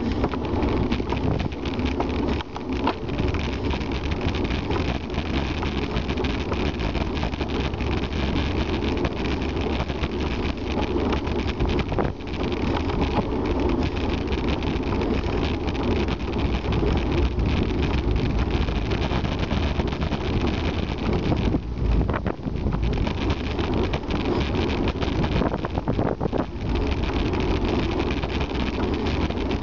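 Steady rush of wind buffeting the camera microphone, with tyre noise from a bicycle rolling along a tarmac lane.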